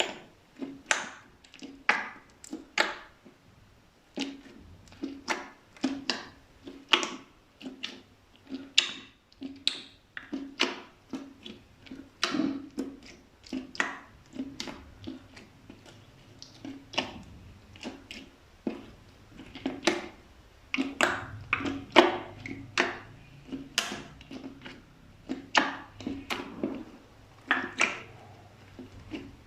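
Slime being pressed and mixed by hand, giving an irregular string of short pops and clicks, about one or two a second.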